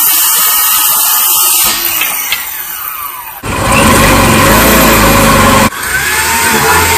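Ryobi circular saw cutting through a wooden 1x2 strip, its motor winding down with a falling pitch as the cut ends. About three and a half seconds in, a power drill takes over, boring into the van's sheet-metal underbody with changing speed.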